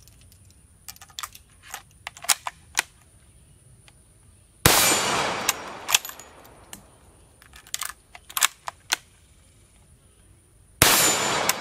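Two shots from an 1886 Lebel bolt-action rifle in 8mm Lebel, about six seconds apart, each with a trailing echo. Between them come short metallic clicks as the bolt is worked.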